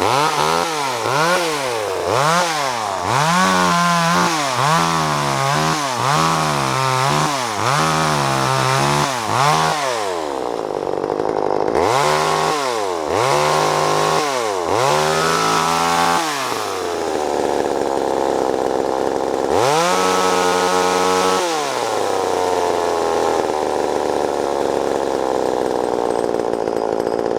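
Vintage Craftsman 2.3 two-stroke chainsaw running, blipped up to speed and back about once a second in repeated revs, settling between bursts to steady lower running. It is held at high revs for about two seconds past the middle, then drops back to steady lower running.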